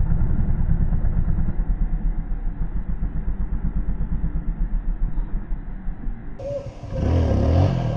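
Dirt bike engine pulling in low gear as the throttle is opened to lift the front wheel into a slow wheelie: a fast, rough pulsing rumble. Near the end it gives way abruptly to a louder, closer sound with a voice-like pitch in it.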